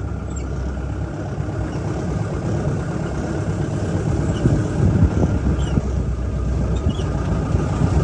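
Jeep running along a road, heard from on board: a steady rumble of engine and road noise.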